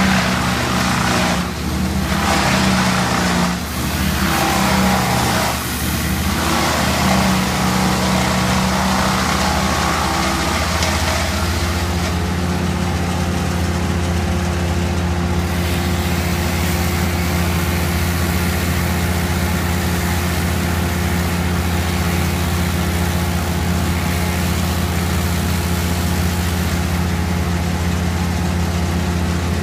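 A large engine running; over the first ten seconds or so its sound changes and dips several times, then it settles into a steady, even drone.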